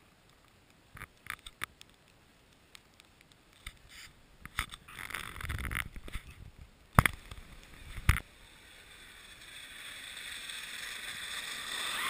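Scrapes and crunches on icy snow and slush, with two sharp knocks about seven and eight seconds in, then a hiss that grows louder near the end.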